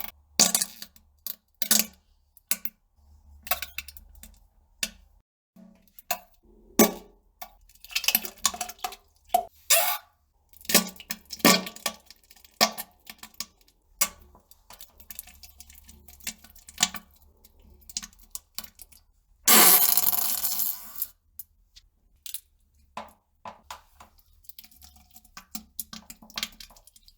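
Wet bowel-movement sounds: irregular short plops, splats and squelches, with one longer, louder burst about twenty seconds in.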